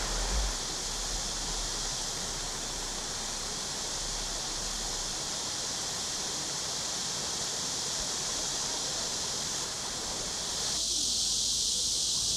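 Steady outdoor background hiss, an even noisy wash with no distinct events. About eleven seconds in, the lower part drops away, leaving a brighter, thinner high hiss.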